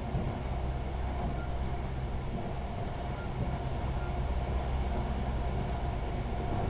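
Pesa 218Mc diesel train running along the line, heard from inside the carriage: a steady low rumble of engine and wheels on the rails, with a faint steady whine above it.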